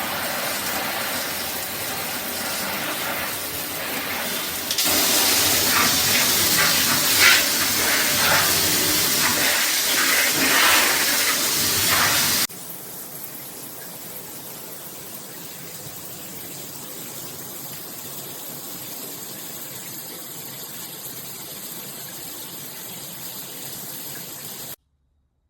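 Water spraying hard from an AquaCare 8-mode handheld shower head. It gets louder and splashier about five seconds in, then drops suddenly at about twelve seconds to a much quieter steady hiss, which cuts off just before the end.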